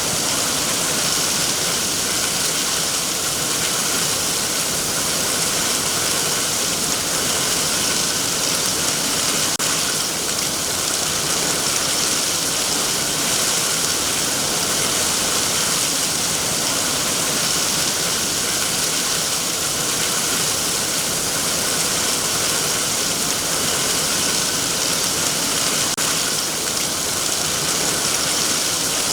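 Heavy rain falling steadily on trees and foliage: a dense, even hiss of rain that holds at the same level throughout.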